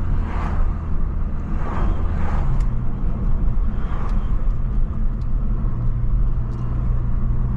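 Straight-piped BMW 540i exhaust droning at low speed, heard from inside the cabin. The engine note shifts a couple of times as the revs change.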